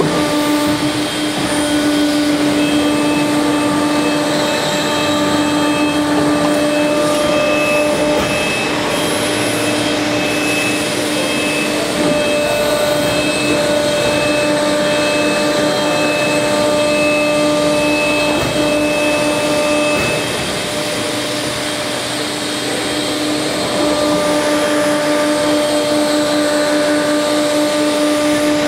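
Akyapak four-roll plate bending machine running as it rolls a steel plate into a curve: a steady motor and hydraulic-pump whine with several held tones over a hiss. It eases off briefly about two-thirds of the way through, then picks up again.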